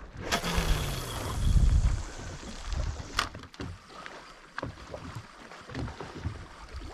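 Wind buffeting the microphone over water sloshing, strongest in the first two seconds, with a few sharp clicks scattered through.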